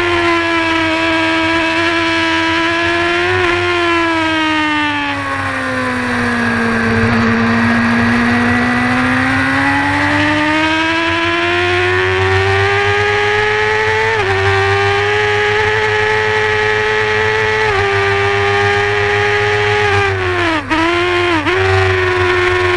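Honda racing motorcycle's engine heard onboard at high revs. Its pitch sinks slowly over a few seconds, then climbs back. Later come small steps in pitch and two sharp dips near the end.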